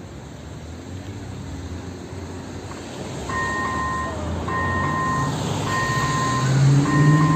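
An AŽD Praha electronic level-crossing bell (type Elektronický 01) starts about three seconds in: a two-tone electronic beep repeating roughly once a second, sounding the crossing warning. Underneath, vehicle engine noise grows louder toward the end.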